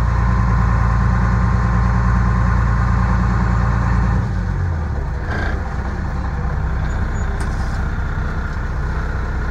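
Single-axle dump truck's diesel engine running, heard from inside the cab as the truck rolls along. About four seconds in the engine note drops and gets quieter, and a short hiss follows about a second later.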